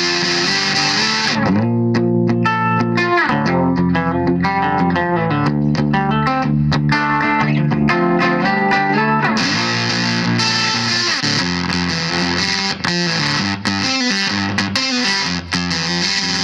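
Electric guitar played through a Volition Amps Vintage Fuzz pedal, running through riffs and single notes with pitch slides. The tone is harsh and hissy at first, cleaner for a stretch, then turns harsh and hissy again about nine seconds in.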